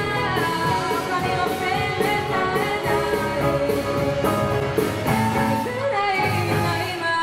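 Live rock band performance: girls singing into microphones over drum kit and electric and acoustic guitars, heard through the room.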